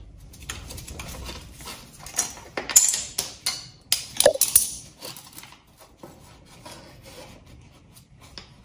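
Chain guard being unscrewed and worked off the swingarm of a 2008 Honda CBR600RR by hand. A cluster of clicks, knocks, rattles and scraping comes about two to five seconds in, with lighter handling clicks after.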